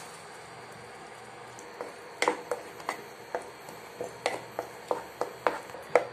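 Wooden spatula stirring thick spinach puree in a pan, clacking against the pan in sharp, irregular knocks about twice a second from about two seconds in.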